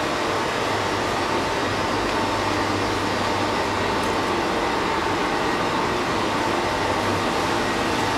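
Steady machinery hum in a large workshop hall, with a faint constant whine above it.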